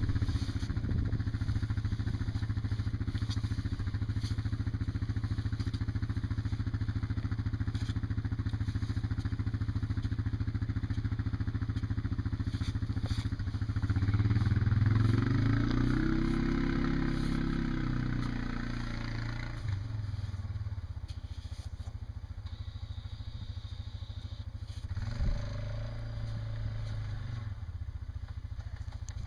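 An engine runs steadily. It grows louder around the middle, then slowly eases off toward the end.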